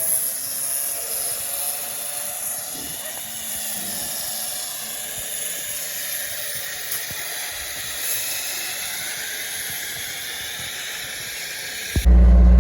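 Steady high-pitched hiss over faint outdoor background with a few small knocks. Near the end it cuts abruptly to a loud engine running steadily.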